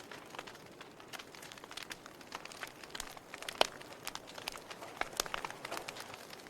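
Wood fire crackling in a fireplace: a steady hiss with irregular pops and snaps, the sharpest one a little past halfway.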